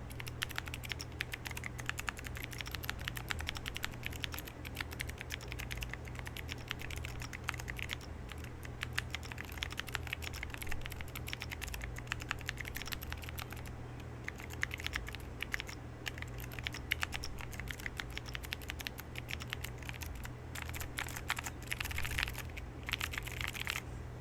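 Fast, continuous typing on a Libra Mini40 keyboard with a POM plate and Aifei Tiffany keycaps, its switches Kailh Red housings fitted with Cherry MX Blue stems, lightly and, by the builder's own account, unevenly lubed. The typing pauses briefly a few times, over a steady low hum.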